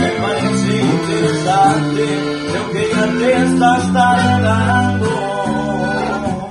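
Corrido played live on guitars: an acoustic guitar strums the chords and bass line while a requinto picks the lead melody above it.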